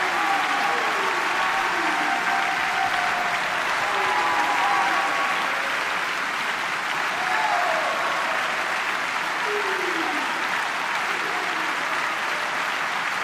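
Concert-hall audience applauding steadily after a brass band performance, with a few voices calling out and cheering over the clapping.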